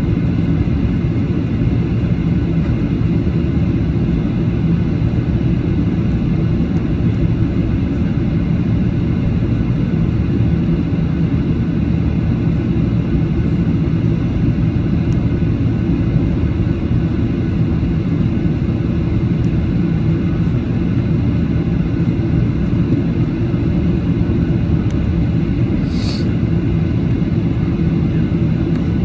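Boeing 737-800's CFM56-7B jet engines running steadily, a low, even rumble with a few steady tones in it. A brief high click sounds once near the end.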